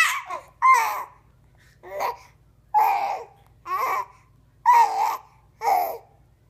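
Baby babbling: about seven short vocal coos and squeals, each under a second long, with pauses between them.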